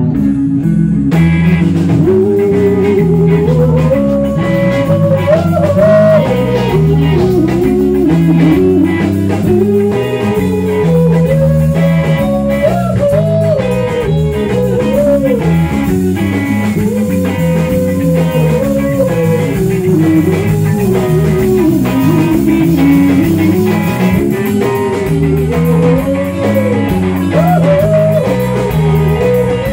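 Live blues-rock band playing an instrumental stretch: electric guitars, bass and drum kit, with a lead line that bends and slides in pitch over the chords.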